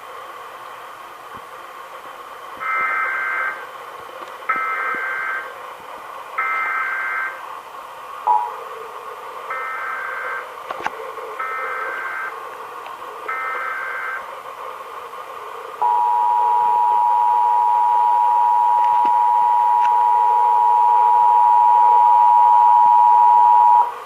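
Emergency Alert System test tones over a broadcast feed: six short bursts of SAME digital header data, about a second each in two sets of three, then about eight seconds of the EAS attention signal, 853 Hz and 960 Hz sounded together as one loud steady tone, over a background hiss.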